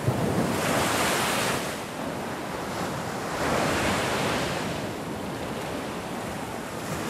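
Sea surf breaking and washing up a beach, a steady rush that swells with each incoming wave, twice, about three seconds apart.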